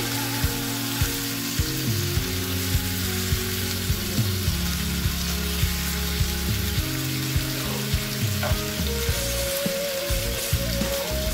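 Meat and bell pepper strips sizzling in a hot non-stick frying pan as they are stirred and tossed with a spatula. Quiet background music with a steady beat plays underneath.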